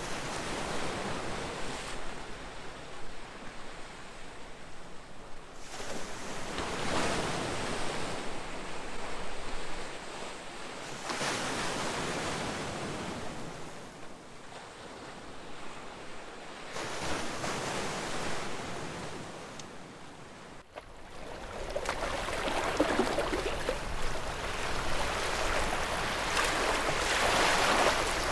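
Ocean waves breaking and washing in, the surf noise swelling and fading about every five or six seconds, with the loudest and longest surge building near the end.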